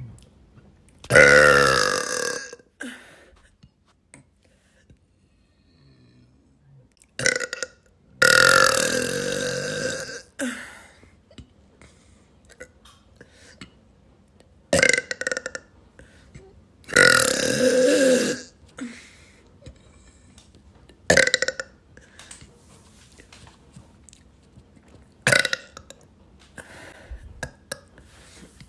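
A woman burping repeatedly: three long, drawn-out burps of a second and a half or more, with shorter burps between them and quiet gaps in between.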